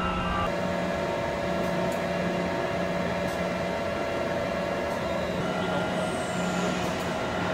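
Steady industrial machinery hum with several held tones, typical of a steel coil plant's cranes and line equipment. A thin high whine falls in pitch about six seconds in.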